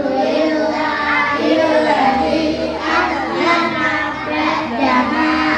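A group of young children reciting memorised daily Islamic prayers (doa) together in unison, in a sing-song chant.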